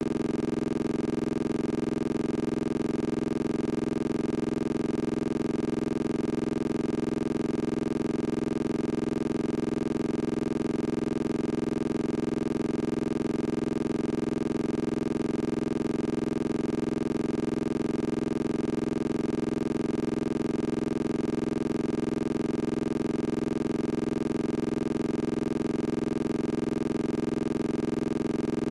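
A steady electronic hum that does not change at all, made of several steady tones, the lowest and loudest of them a low drone.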